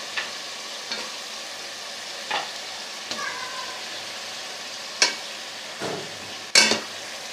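Meat and bones being added to a pot of frying masala: a steady sizzle broken by about seven sharp clatters and splats as pieces drop in, the loudest about five seconds in and near the end.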